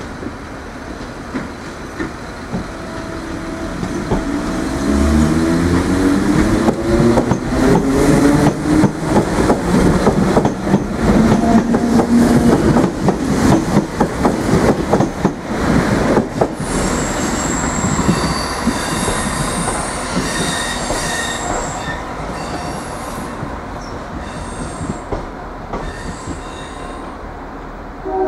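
DART 8100-class electric multiple unit pulling away close by. A whine rises in pitch as it picks up speed, and the wheels clatter over rail joints and points. High-pitched wheel squeal then comes and goes as the train takes the curves.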